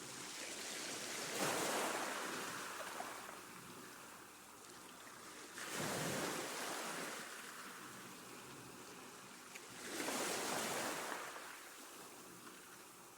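Sea waves breaking three times, each surge of surf rising quickly and then washing back over a few seconds.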